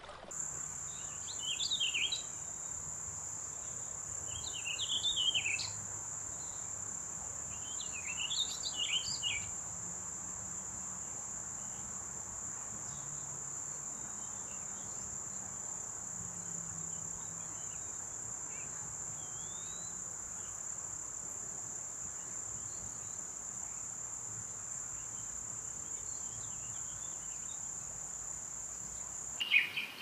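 A steady, high-pitched insect drone runs without a break. Over it a songbird sings three short, chirpy phrases in the first ten seconds, with a few faint calls later.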